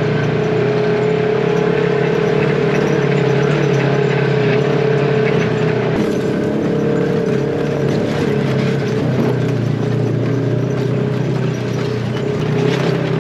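Polaris RZR side-by-side's engine running at a steady drone as it drives along a rocky dirt trail, with scattered clicks and rattles over the top.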